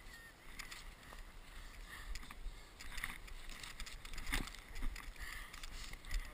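Scattered crunches and knocks of snow and gloves close to a body-worn action camera, the loudest a little past four seconds, with faint distant shouts.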